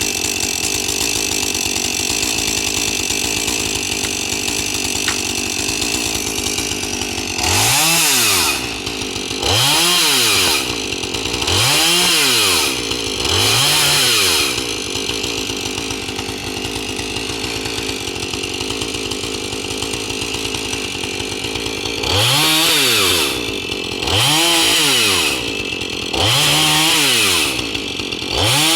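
Chainsaw engine idling, then revved up and let back down in short bursts: four revs about two seconds apart, a stretch of idling, then four more.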